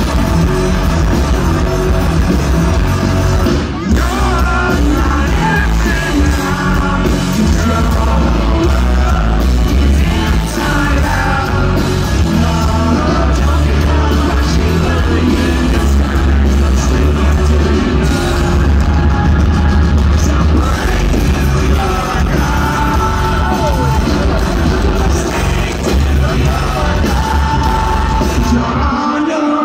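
Rock band playing live with a singer, amplified through a large outdoor PA and heard from the crowd: loud, with heavy bass.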